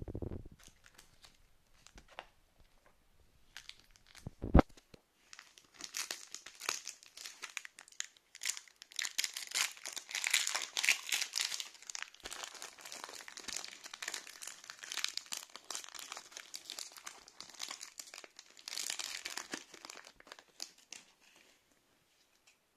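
A foil Pokémon booster pack wrapper, a counterfeit Sun & Moon pack, being torn open and crinkled by hand in a long run of dense crackling. It is preceded by a single sharp thump about four and a half seconds in, and stops shortly before the end.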